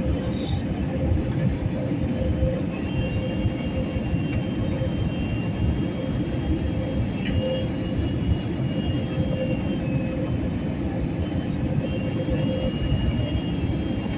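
Steady rumble and roar inside an airliner cabin, with a faint constant hum.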